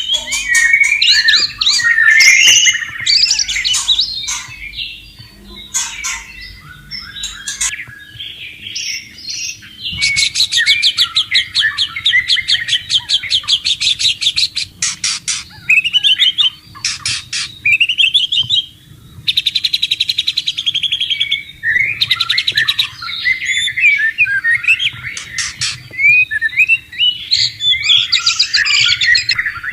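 White-rumped shama singing a loud, varied song of quick whistled phrases. Twice it breaks into a long run of very fast repeated notes.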